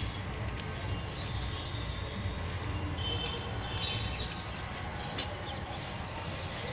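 Steady low rumble, with faint bird chirps and a few light scratches as fingers press sandy potting soil around a small cactus.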